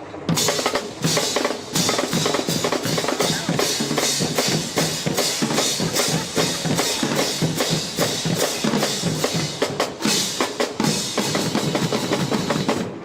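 Marching band drumline playing a fast cadence on snare and bass drums, with dense, even strikes that stop sharply near the end.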